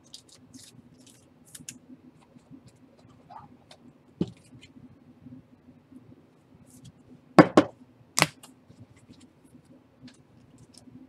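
Baseball cards and pack wrappers being handled: soft rustles and light clicks, with a sharper knock about four seconds in and a few louder snaps around seven and a half and eight seconds in.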